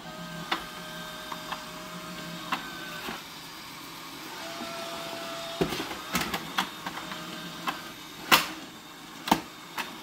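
Neabot Q11 robot vacuum running as it drives out of its self-emptying dock: a steady motor whirr with a few held tones and scattered clicks and knocks, the loudest about eight seconds in.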